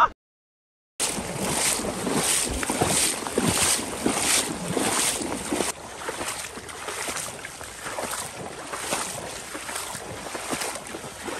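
Boots wading through shallow marsh water and grass, with a loaded sled dragging through the water behind: evenly paced sloshing splashes, about one and a half a second. It begins about a second in and eases off somewhat about halfway through.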